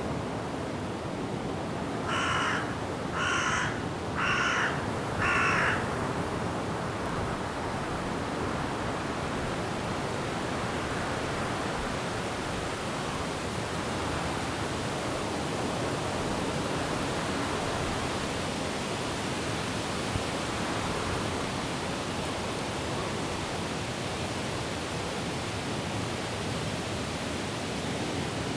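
A crow cawing four times, about a second apart, a couple of seconds in. Under it, a steady hiss of wind in the trees and falling rain.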